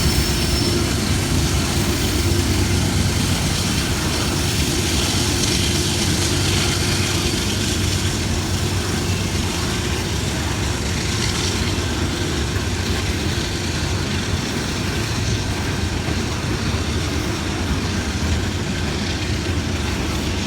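Freight train rolling past: a loud, steady rumble of the train on the rails, the sound of the KCSM GE AC4400CW diesel locomotive and its cars, easing very slightly over the stretch. A faint steady hum in it fades out several seconds in.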